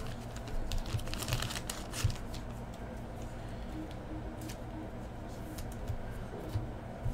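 Baseball trading cards being handled: quick light clicks and taps as cards are flicked through and set down on stacks on a table, thickest in the first couple of seconds and sparser after, over a steady low hum.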